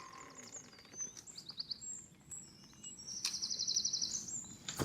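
Small songbirds chirping, with a fast, even trill about three seconds in.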